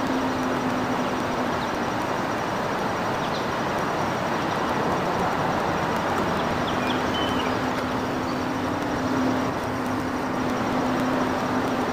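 Steady distant mechanical hum and background noise, with a low steady drone that drops out for a few seconds in the middle; a few faint short chirps now and then.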